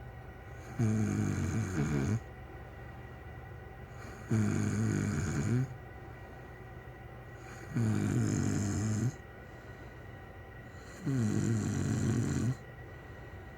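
Loud snoring from a person asleep in bed: four long snores, one about every three and a half seconds, each lasting over a second, with quieter gaps between them.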